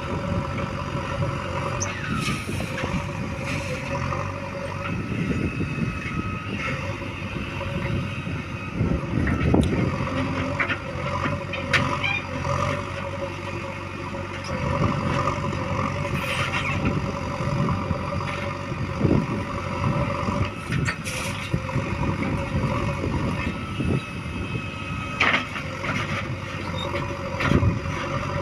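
Diesel engine of a JCB 3DX backhoe loader running steadily while it works, with scattered clanks and knocks of the bucket and machinery.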